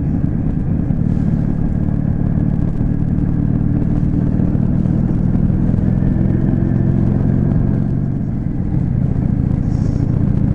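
Yamaha Drag Star 400's V-twin engine running steadily while the motorcycle is ridden, dipping briefly a little past eight seconds in before picking up again.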